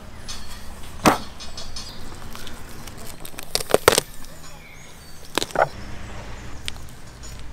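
Sharp knocks and cracks from butchering a lamb carcass on a wooden table: one about a second in, three close together near the middle, and two more soon after.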